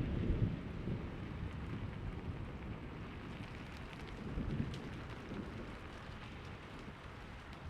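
Steady rain falling, with the low rumble of a thunderclap dying away over the first second or so and a fainter roll of thunder about halfway through.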